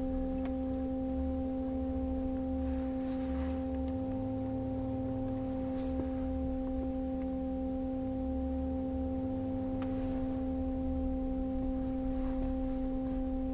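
Rolls-Royce Cullinan's parking-sensor alert sounding one continuous steady tone, the warning that an obstacle is very close to the vehicle. Under it is a low uneven rumble from the SUV crawling over rough dirt.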